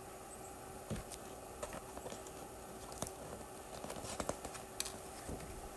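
Quiet room tone with a faint steady hum and a scattering of light clicks and taps, thickest about three to five seconds in.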